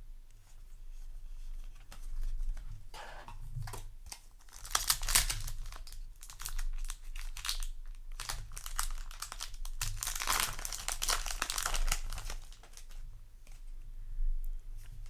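Crinkly plastic or foil packaging being handled and torn in bursts, loudest about five and eleven seconds in, as trading cards are unpacked.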